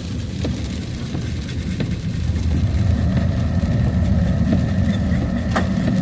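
Truck driving, heard from inside the cab: a steady low engine and road rumble that grows a little louder about two seconds in, with a couple of faint clicks.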